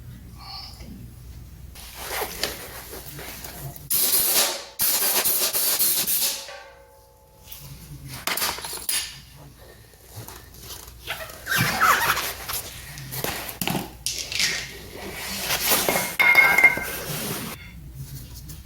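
Bursts of tool and metal clatter as nuts on the rear wheel and brake are being snugged up by hand, with loud stretches of rustling and knocking.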